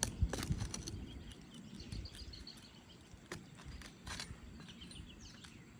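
Scattered clicks and knocks of a roofing nail-pulling tool worked under an asphalt 3-tab shingle, prying out a pair of nails set close together.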